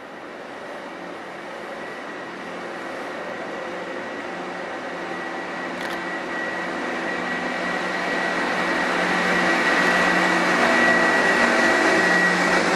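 Yellow on-track rail maintenance machine approaching along the line. Its engine hum and a thin high whine grow steadily louder, and it is loudest near the end as it reaches the bridge.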